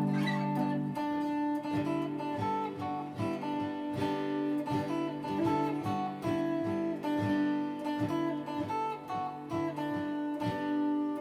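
Acoustic guitar strummed in a steady rhythm with no voice: an instrumental passage of chord strums.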